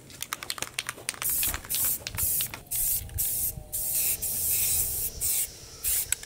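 Rust-Oleum aerosol spray-paint can spraying in a series of short hissing bursts as it coats a steel cart bed, after a quick run of rapid clicks near the start.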